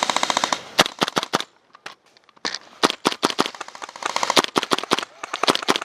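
Airsoft electric guns (AEGs) firing in rapid full-auto bursts, a fast run of clicking shots at the start, a short lull, then more bursts from about two and a half seconds in.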